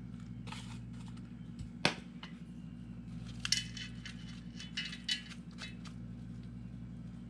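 Soft clinks, taps and scrapes of potting work: a metal spoon scooping soil from a tin coffee can, and cardboard tubes of soil being handled on a plastic plate and poked with a pencil. There is one sharp clink about two seconds in and a cluster of ringing metallic clinks around the middle, over a steady low hum.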